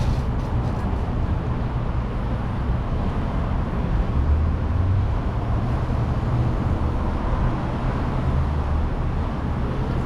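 Steady low rumble of running vehicle engines, even throughout with no distinct events.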